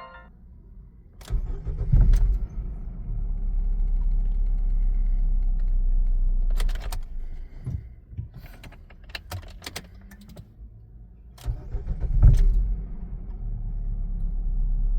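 Car engine running with a low rumble, broken by sharp knocks and clicks, the heaviest thumps about two seconds in and again near the end. The owner suspects these knocks come from a failed engine or gearbox mount.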